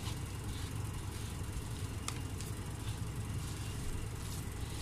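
Hands mixing flour and water into crumbly dough in a steel bowl, a few brief soft rustles and taps, over a steady low motor-like hum.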